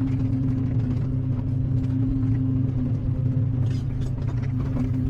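Excavator's diesel engine running at a steady working speed, with a few faint scrapes about three and a half seconds in.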